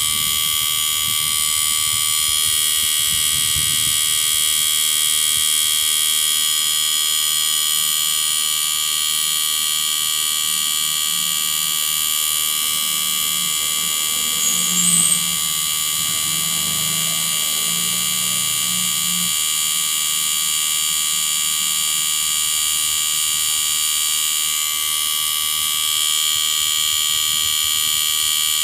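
Panasonic split inverter air conditioner running steadily with its compressor on, a constant electric hum and high whine with no stopping, the sign that the fault where the compressor ran only a second is cured. A short louder blip about halfway through.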